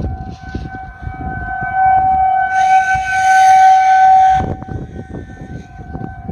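Outdoor tornado warning siren sounding a steady tone at one held pitch during a siren test. A louder rushing noise joins for about two seconds in the middle.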